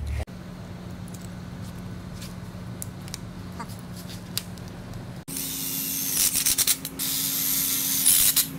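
A cordless drill driving screws in several short runs, its motor whine and high hiss starting and stopping, from about five seconds in. Before that there is only a low steady hum with a few faint handling clicks.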